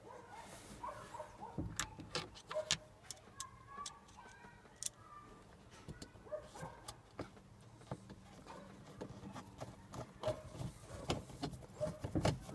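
Hand screwdriver driving a self-tapping screw into the dashboard crossbar: scattered light clicks and scrapes, with faint short squeaks.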